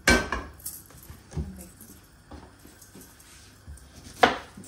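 A metal cooking pan set down on the grate of a gas hob with a ringing clank, followed by a few lighter knocks and handling clicks. A sharp knock near the end as a knife cuts through an onion onto a wooden chopping board.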